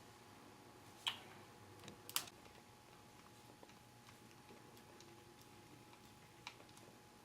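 A few small, sharp clicks of a small screwdriver and screws on a laptop's plastic screen bezel over near silence: the two loudest come about one and two seconds in, with a fainter one near the end.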